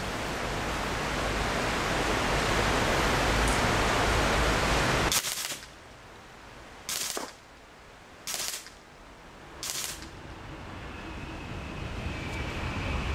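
A steady rushing noise that cuts off with a sharp click about five seconds in, followed by a PCP air rifle firing three short full-auto bursts about a second and a half apart.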